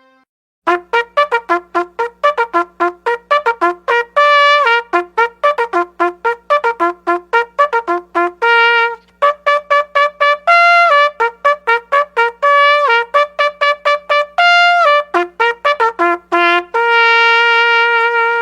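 Solo trumpet playing a fast phrase of short, separated notes broken by a few brief held notes, ending on a long sustained note near the end.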